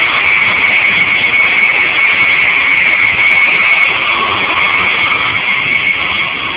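InterCity train running at speed, heard from inside the passenger coach: a steady, loud rushing noise of wheels on rail and air.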